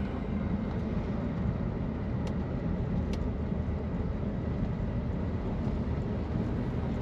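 Steady drone of a 1966 AMC Marlin's engine and tyres, heard from inside the cabin as the car cruises along a road. Two faint ticks come about two and three seconds in.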